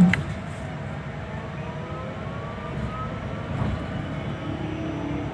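Cabin of an electric bus on the move: a loud thump at the start, then a steady low road rumble with the drive motor's whine rising in pitch as the bus gathers speed.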